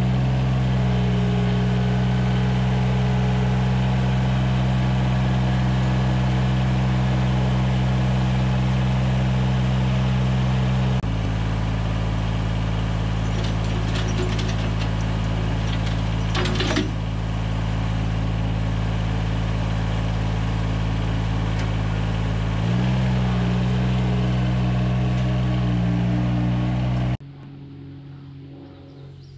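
Compact John Deere tractor's engine running steadily, its note shifting slightly twice, with a few sharp metal clinks from the loader's lifting chain about halfway through; the engine sound stops abruptly near the end.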